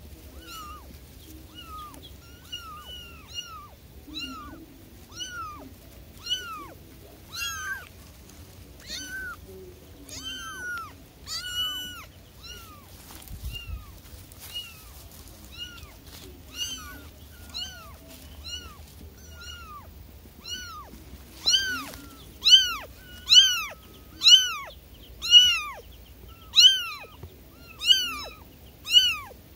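Young kittens mewing over and over, short high calls that rise and fall in pitch, about one or two a second, growing much louder after about twenty seconds. The kittens are calling for their mother.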